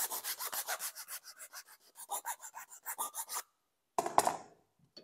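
A hand file rasping in quick, even strokes across the sawn end of a 32 mm plastic waste pipe, deburring it. The filing stops about three and a half seconds in, and a sharp knock follows.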